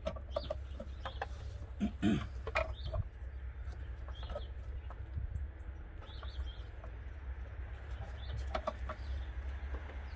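Scattered short bird calls over a steady low rumble, with a few clicks and knocks from hands working plastic wiring connectors and harness in an engine bay, the loudest knock about two seconds in.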